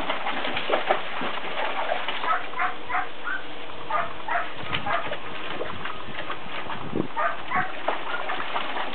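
Water splashing and sloshing as a border collie puppy paws and wades in a shallow plastic kiddie pool, over a steady rush of water.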